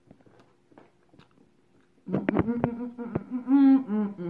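A woman humming 'mmm' through closed lips while chewing food, a few drawn-out gliding notes starting about two seconds in, with a few sharp mouth clicks among them; faint chewing clicks before that.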